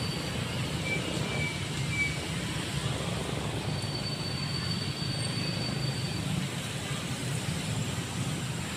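Steady outdoor background noise: a low rumble, with a faint high whine for about two seconds in the middle.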